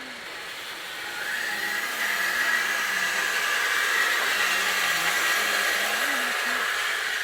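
CNC machining center at work: a loud, steady hiss with a high whine, building about a second in and cutting off abruptly at the end.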